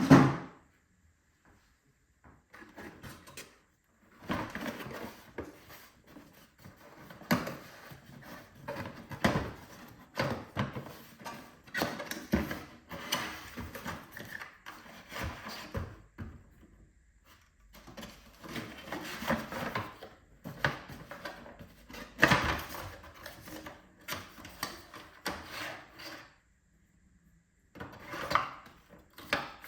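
Unboxing handling sounds: cardboard and plastic packaging rubbing and scraping, with intermittent knocks and thuds as parts are lifted out and set down. A loud knock comes at the very start and another about two-thirds of the way through.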